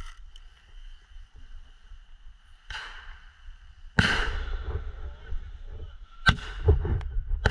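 Sharp bangs with a ringing tail: a short hiss, then a loud bang about four seconds in that rings out for over a second, a sharp click a couple of seconds later, and another bang near the end. A player takes the noise for something resonating inside a trailer.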